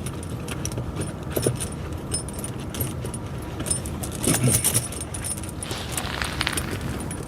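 Steel tractor snow-chain links clinking and jingling irregularly as the chain is handled and settled over the tire tread, over a steady low hum.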